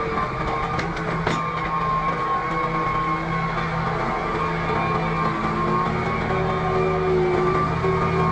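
An engine running steadily with music underneath.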